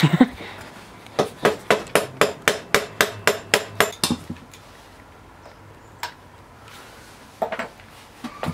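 A tool striking at a dirt bike's rear axle to take off the back wheel: about a dozen quick, evenly spaced strikes, about four a second, for around three seconds, then a few single knocks.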